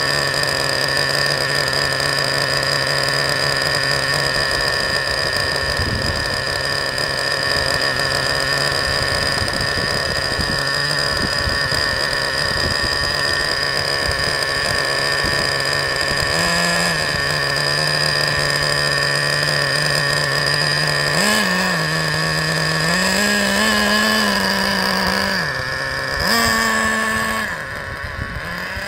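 Traxxas Revo 3.3's TRX 3.3 two-stroke nitro engine idling steadily, then blipped up a few times before the truck pulls away and its sound fades with distance near the end. The low-speed needle is set too lean from the factory, which the owner says makes the engine sound horrible and damaged it.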